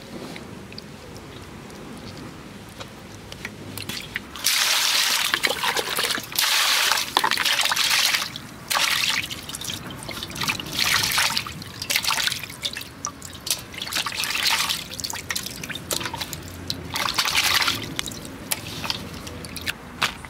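Water splashing and trickling in a metal basin while skinned rats are rinsed in it, in repeated bursts of about a second each that begin about four seconds in.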